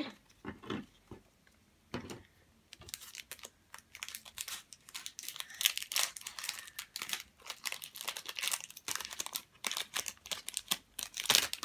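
Foil Pokémon booster pack wrapper crinkling as it is worked open by hand: a dense run of irregular crackles starting about two seconds in.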